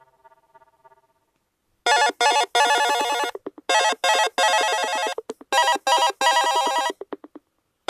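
UMX phone alarm or notification tone: a bright, buzzy electronic ring in a pattern of two short rings and one longer one, played three times.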